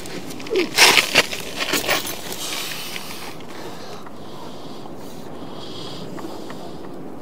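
Sewer-camera push cable being fed down a vent pipe: a cluster of sharp clattering knocks and scrapes in the first two seconds, then a steady hiss.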